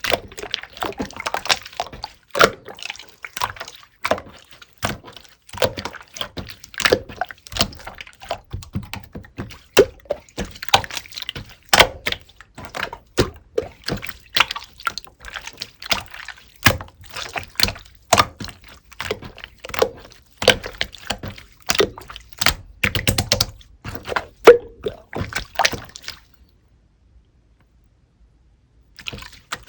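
Clear slime being squeezed and pressed by hand, giving a dense, irregular run of wet clicks and pops. It stops for about three seconds near the end.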